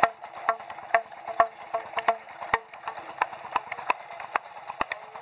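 Sato light-oil hot-bulb engine running slowly, its single cylinder firing in sharp pops about twice a second, with lighter ticks between.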